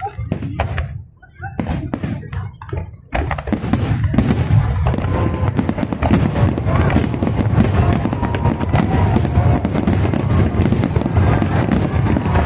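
Fireworks display: separate bangs of aerial shells bursting for the first three seconds, then from about three seconds in a dense, louder barrage of overlapping bursts that runs on without a break.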